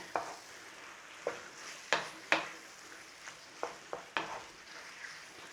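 Cubed chicken frying in onion paste and spices in a pan with a faint sizzle, while a utensil stirs it through, knocking against the pan several times at uneven intervals.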